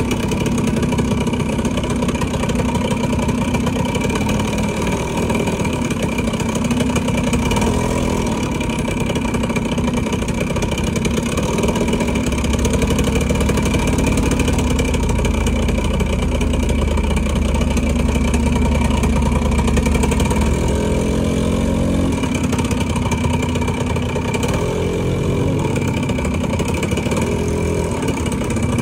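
Motorcycle engine running amid steady road and traffic noise, its pitch shifting up and down around twenty seconds in as it speeds up and slows.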